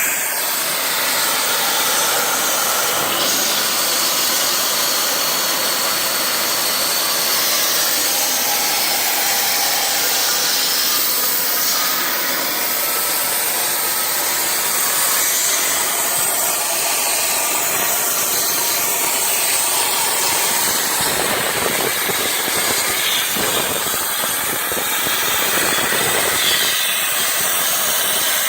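Plasma torch cutting quarter-inch aluminum plate on a CNC table: a loud, steady hiss of the arc and air jet that runs without a break.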